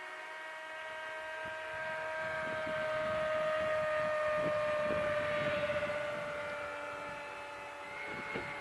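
Radio-controlled model airplane's motors whining in flight just after a flaps-down takeoff. The steady tone grows louder as the plane passes, drops slightly in pitch, then fades away.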